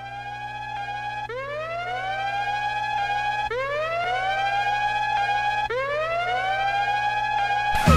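A siren wailing up in pitch and levelling off, restarting about every two seconds in overlapping layers over a low steady drone, growing louder at first. Just before the end, a drum-heavy music track cuts in.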